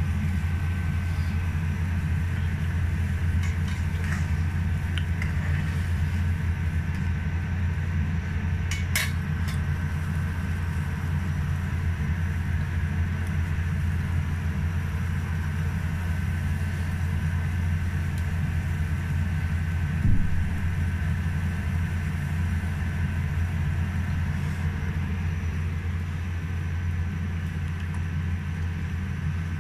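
Gas stove burning under a stainless steel wok of broth, giving a steady low rumble with a faint steady tone above it. Over it come a few light metal clinks of a spatula against the wok, the sharpest about nine seconds in.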